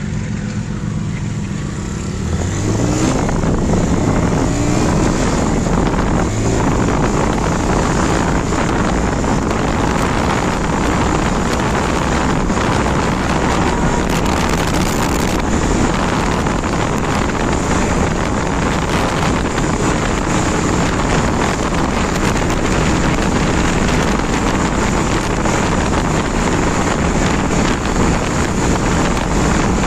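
TVS Raider's 125 cc single-cylinder engine pulling away hard, its pitch climbing in several quick rising steps as it goes up through the gears about two seconds in. After that, a steady rush of wind over the microphone at speed, with the engine running underneath.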